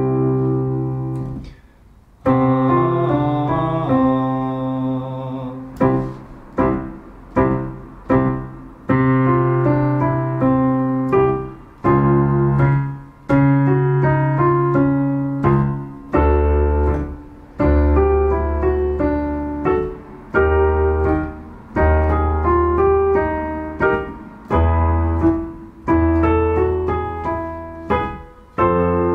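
Digital piano playing a vocal warm-up pattern, do-fa-re-mi-do, over chords in the low register. The pattern repeats again and again at changing pitches, with each phrase starting on a fresh struck chord.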